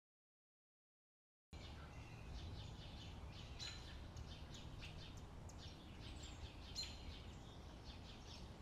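Dead silence for about a second and a half, then faint woodland ambience: a low steady background noise with many short bird chirps scattered through it.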